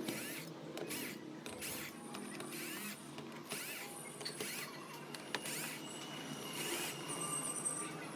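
Irregular clicks, taps and short scrapes of hands and tools working on the keyboard's plastic casing and parts during a repair.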